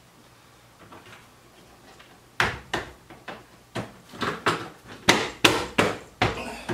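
Plastic interior molding in a 2002 Mazda Miata cockpit being pressed and knocked into place by hand: a quick, irregular run of sharp knocks and snaps, about three a second, starting about two and a half seconds in.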